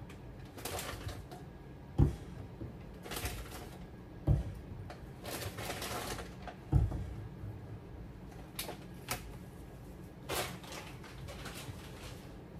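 Objects being handled on a kitchen countertop while tidying: three dull clunks about two seconds apart as things are set down, with brief scraping and rustling between them and a couple of light clicks later.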